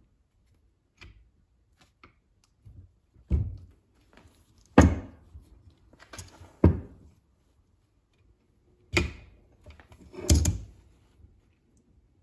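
Steel parts of a Ford 6F55 front differential knocking together as the shaft pin is worked through the case and spider gears: about five heavy thunks a second or two apart, with lighter taps between them.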